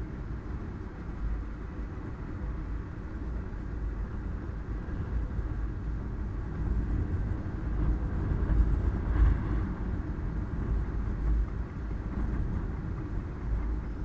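Car on the move: a steady low rumble of engine and road noise that swells a little about two-thirds of the way through.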